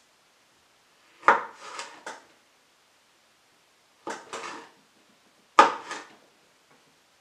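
Chef's knife slicing through cherry tomatoes and knocking on a cutting board, in three short bursts of knocks: about a second in, about four seconds in and near six seconds.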